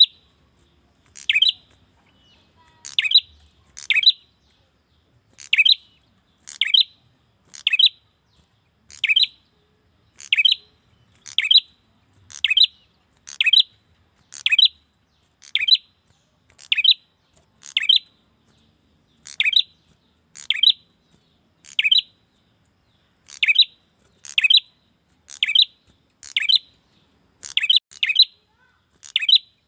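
Male prinia (prenjak) giving its call to a female: short, sharp chirps repeated about once a second, now and then two in quick succession.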